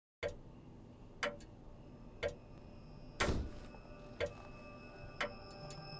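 Clock ticking about once a second, with one louder, heavier hit about three seconds in. Faint sustained tones come in during the second half.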